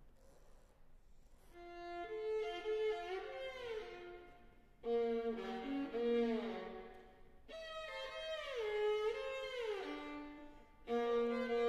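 Violin bowing sustained notes, several pitches held at once, in short phrases that begin abruptly about every three seconds, with notes sliding downward in glissandi. It starts after a quiet second or so.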